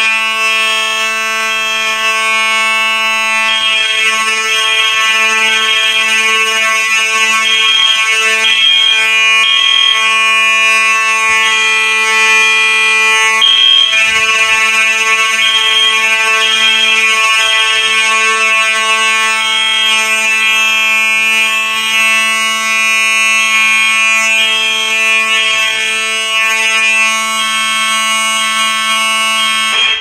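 Simplex fire alarm horns sounding in general alarm after a manual pull station is pulled: a loud, steady buzzing horn tone, with a higher-pitched horn tone pulsing on and off over it. The whole sound cuts off abruptly at the end as the alarm is silenced at the control panel.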